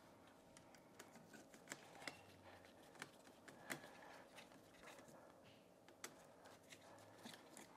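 Faint, irregular small clicks and ticks of a hand screwdriver turning a terminal screw on an electrical receptacle, with little else to hear.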